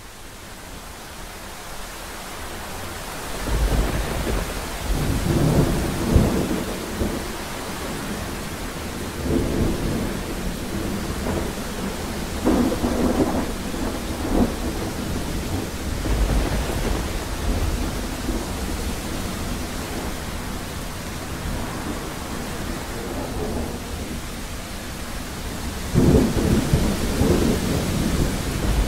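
Heavy rain falling steadily, with thunder rolling and rumbling several times over it. The rain fades in over the first few seconds, and the biggest rolls of thunder come a few seconds in, near the middle and near the end.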